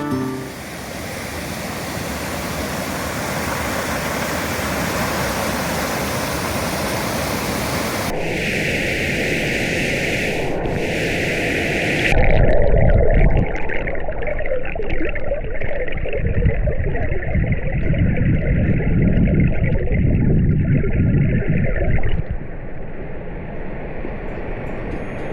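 Rushing water of a mountain stream, a steady, even hiss. About halfway through it turns muffled and deeper, with the high part gone and a heavy low rumble. It lightens again near the end.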